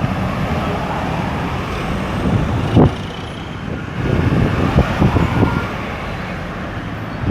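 Road traffic going round a busy roundabout: a steady rumble of car, bus and truck engines and tyres. There is a sharp knock about three seconds in, and a few more knocks just after four seconds as heavier vehicles pass.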